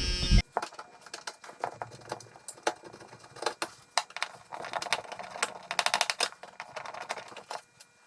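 Hand work on a truck's speaker grille: irregular sharp clicks and light plastic taps, with a quick run of fast, even clicks about six seconds in. A thump opens it.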